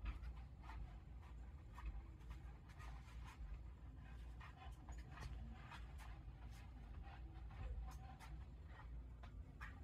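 Faint, irregular clicks and scratches of a black bear's claws on a wooden porch railing as it shifts and walks along it, over a low rumble.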